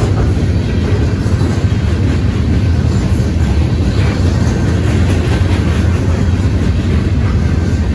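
Freight cars of a Union Pacific manifest train rolling past: a steady, loud low rumble of steel wheels on rail, with faint clicks of wheels over the rail joints.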